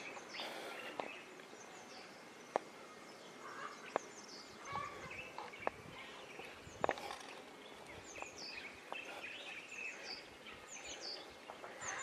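Small birds chirping faintly in quick short calls, more of them in the second half, with a few single sharp clicks.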